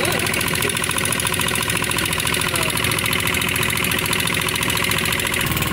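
Motorboat engine running steadily under way, with a fast, even firing rhythm; its low tone grows stronger near the end.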